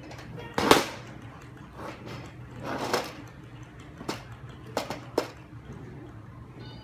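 A plastic toy piano being flipped and handled on a wooden floor, knocking and clattering about five times, the loudest knock under a second in. Its tune is silent while it is being handled.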